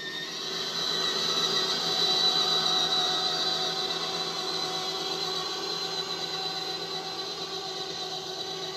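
Electric motor and gearbox of a child's battery-powered ride-on quad whining steadily as it drives. It grows louder over the first two or three seconds, then slowly fades as the quad moves away.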